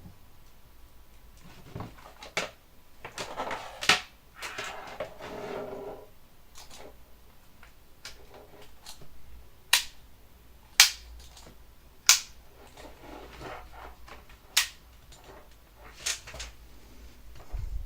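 Unboxing handling: packaging rustling, with a sharp click or snap every second or few, about seven in all.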